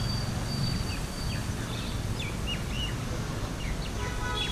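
Outdoor ambience of small birds chirping: scattered short chirps that drop quickly in pitch, over a steady low background rumble.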